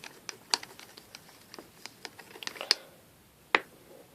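Irregular light clicks and taps as liquid glue is stirred in a mixing container for slime, with a sharper click about three and a half seconds in.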